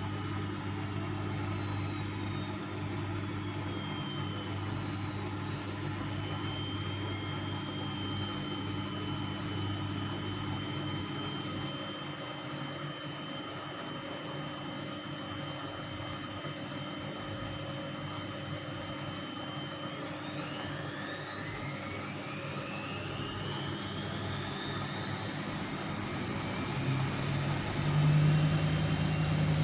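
Vestel CM8710 washing machine spinning its drum. Over a steady hum, the motor's whine first eases down and holds level, then rises in pitch from about twenty seconds in as the drum speeds up, with a louder low drone near the end.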